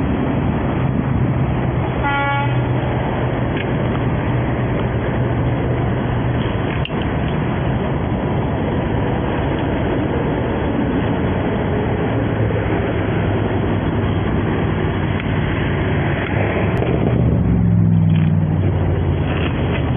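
Steady road traffic and engine hum, with a short car horn toot about two seconds in and a vehicle passing louder near the end.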